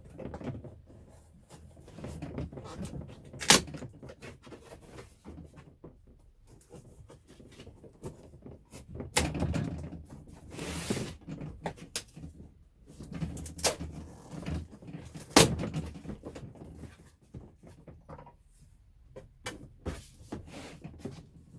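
Cardboard box and packaging being opened and handled, with several sharp knocks and a longer stretch of rustling and scraping about halfway through.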